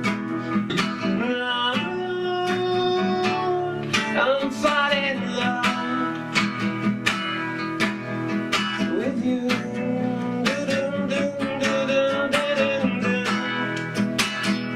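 Acoustic guitar strummed in a steady rhythm, with a man singing held, wavering notes over it for stretches.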